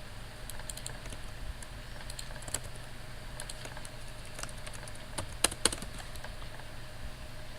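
Computer keyboard keys being tapped in an irregular run of light clicks, with a few louder keystrokes around the middle and a close pair a little past halfway, over a faint steady hum.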